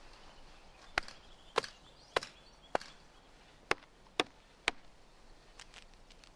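Hatchet chopping into an old pine log to cut out pine knots: about seven sharp, separate strikes roughly two a second, then a pause and two fainter blows near the end.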